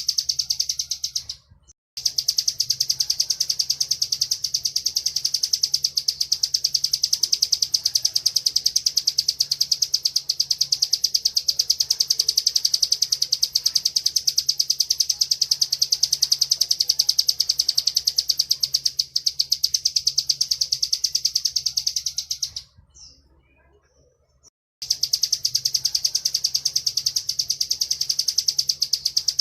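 Bar-winged prinia (ciblek) singing its 'ngebren' song: a long, very rapid, continuous trill of high chirps. It breaks off briefly about a second and a half in, and again for about two seconds around 23 seconds in.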